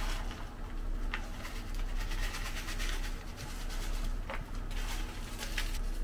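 Light scraping and rubbing with a few sharp clicks, as of objects being handled in a small room.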